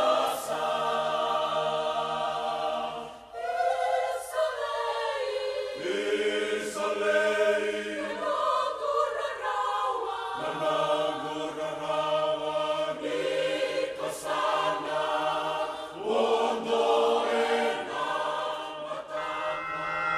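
A choir singing in harmony, long held chords that change every few seconds.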